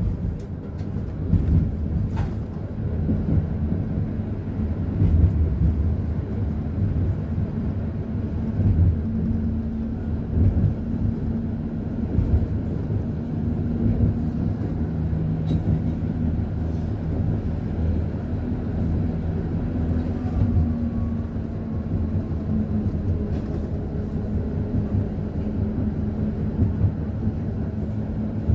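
Konstal 105Na tram heard from inside the car while running: a steady rumble of wheels on rail with a low hum from the traction gearing and DC traction motors. A few sharp clicks come in the first couple of seconds.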